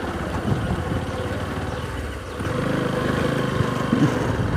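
Small motorcycle engine running while being ridden, getting louder a little over halfway through.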